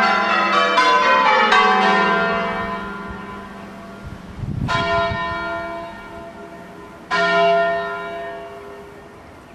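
Change ringing on a ring of eight church bells cast in 1880 by John Taylor and Company. Quick, evenly spaced strikes for about the first second and a half, then the ringing stops and the bells hum away. Two single strikes follow, about four and a half and seven seconds in, each ringing on and fading.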